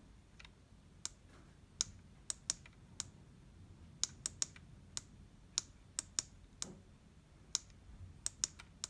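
Buttons and navigation keypad of a Victron Color Control panel being pressed repeatedly: a series of sharp, irregularly spaced clicks, about two a second, some in quick pairs.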